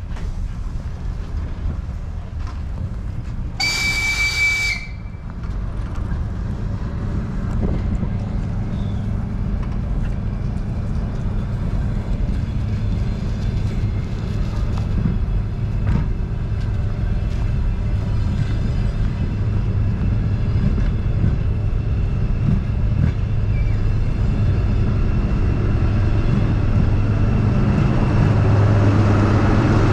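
Passenger train running with a steady low rumble that grows slowly louder, and one short horn blast about four seconds in.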